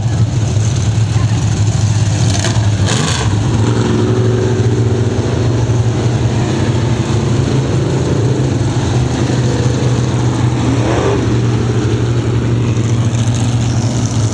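Several dirt-track stock car engines running at low speed as the field circles slowly under caution, a steady rumble. About eleven seconds in, one car revs up briefly as it passes close.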